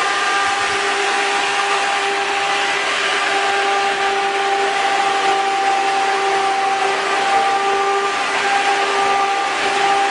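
Wind tunnel fan running steadily, blowing a 16 m/s gale: a loud, even rush of air over a constant hum.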